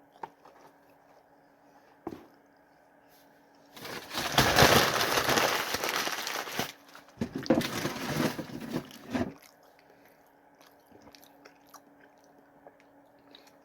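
A person biting into and chewing crunchy fast food close to the microphone, in two loud stretches of crunching.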